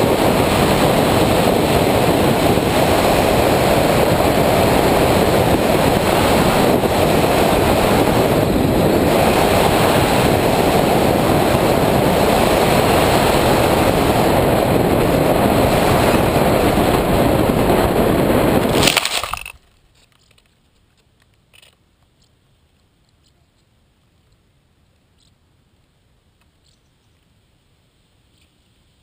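Wind rush and the electric pusher motor of an Easystar II model plane, heard from its onboard camera in low flight. The noise cuts off suddenly about two-thirds of the way through as the plane comes down in long grass, leaving near silence with one faint click.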